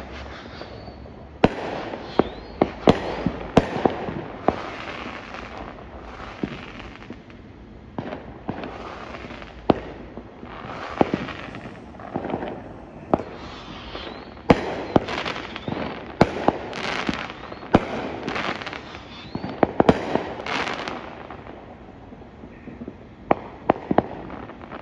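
Fireworks going off: sharp bangs at uneven intervals, sometimes several in quick succession, with crackling between them.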